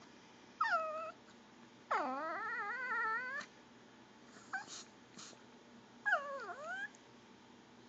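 Pomeranian making gurgling whines: three drawn-out, wavering cries, the longest about a second and a half, with a short chirp between them. It is begging for food.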